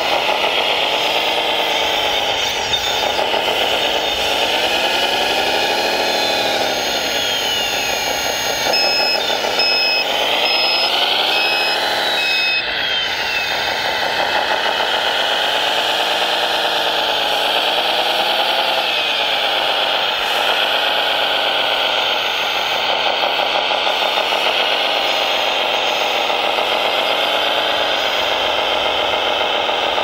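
1/14-scale RC construction machines working, their engine and motor sound rising and falling in pitch with the throttle every few seconds. An intermittent reversing beeper sounds about a third of the way in.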